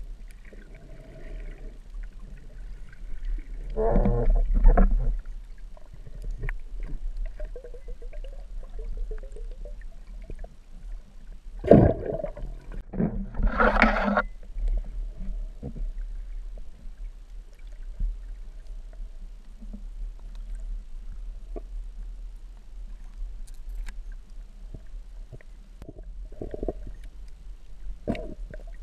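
Underwater sound picked up through a camera housing: a steady low rumble of moving water, with louder muffled gurgling bursts about four seconds in and again around twelve to fourteen seconds.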